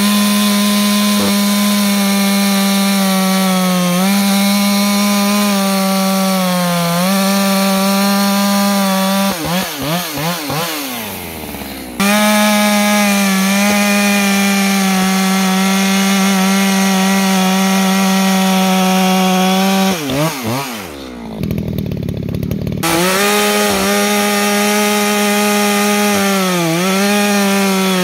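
Echo CS-620P two-stroke chainsaw running at full throttle while cutting wood, its engine note holding steady under load. About ten seconds in the revs rise and fall as the throttle is worked, and around twenty-one seconds in the engine drops briefly to idle before revving back up.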